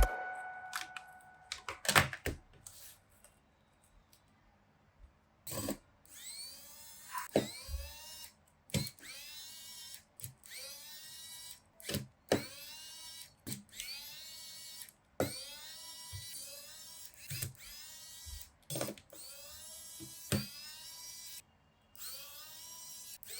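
A small electric tool motor run in short bursts, about once a second, each starting sharply and spinning down in pitch.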